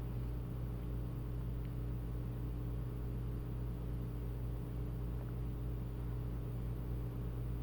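Steady low hum with a faint even hiss, unchanging throughout, with no distinct events.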